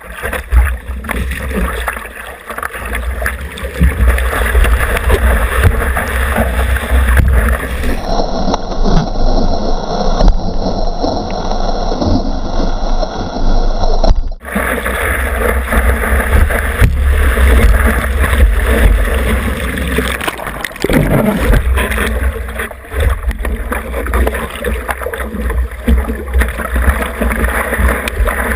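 Seawater splashing and rushing close around a surfboard-mounted action camera, with a heavy low rumble of water and wind on the microphone. The sound changes abruptly twice, about 8 and 14 seconds in, where clips are cut together.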